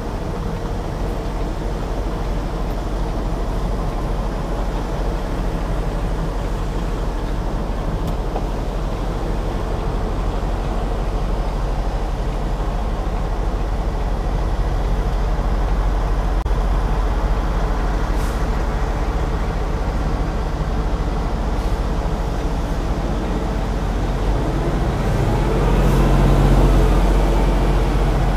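Semi-truck diesel engine running at low speed, heard from inside the cab as the tractor-trailer backs slowly. Near the end the engine note swells and bends up and down briefly.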